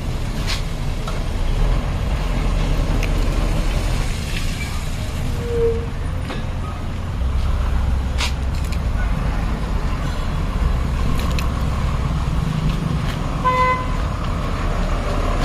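Ashok Leyland BS2 lorry's diesel engine running at low speed as the lorry reverses slowly, the rumble rising in a couple of spells of throttle. A short horn toot sounds near the end.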